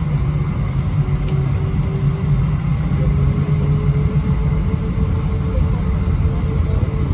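Airbus A320 cabin noise: a steady low rumble from the IAE V2500 engines and airflow, with a faint engine tone that slowly rises in pitch.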